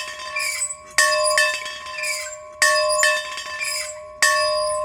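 A bell being rung: three strong strokes about a second and a half apart, each with a lighter second hit just after, and the bell ringing on between strokes.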